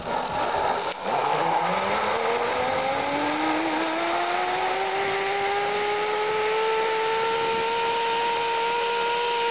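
Zipline trolley's pulley wheels running along the steel cable: a whine that starts about a second in, rises in pitch as the rider picks up speed, then holds steady, over a steady rushing noise.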